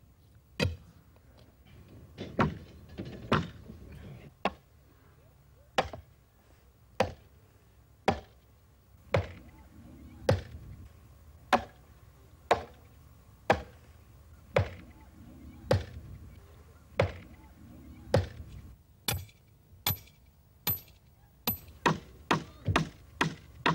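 Sledgehammer blows driving a wooden stake into the turf, a dull thud about once a second. Near the end the strikes come quicker and lighter, with a high metallic ring: a hammer driving nails into the post.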